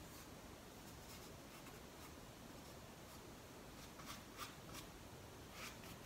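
Faint scratchy strokes of a paintbrush dragging acrylic paint across a stretched canvas, a handful of short strokes, the clearest ones in the second half.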